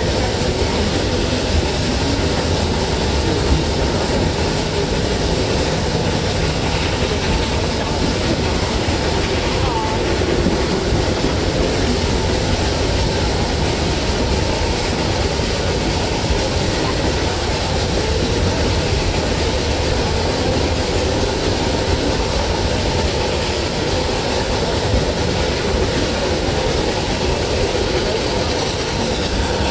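Narrow-gauge steam train under way, heard from aboard: a steady rumble and clatter of the cars running on the rails.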